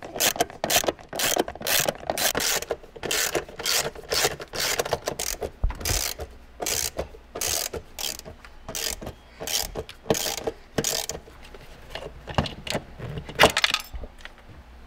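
Hand ratchet clicking in quick runs of strokes, about two or three clicks a second, as the screws holding the manual shifter assembly to the floor are backed out.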